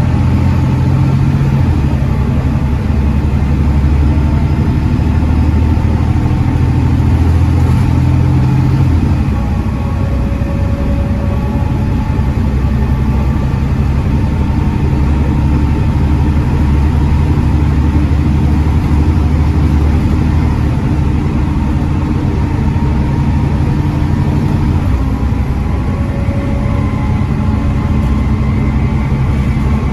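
Volvo D7C 7.3-litre diesel engine of a Volvo B7TL double-decker bus running steadily under way. Its note steps to a different level a few times.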